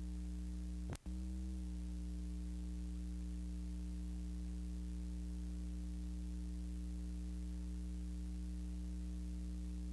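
Steady electrical hum with a layer of hiss, the background of a silent film transfer with no soundtrack. A brief click and dropout comes about a second in.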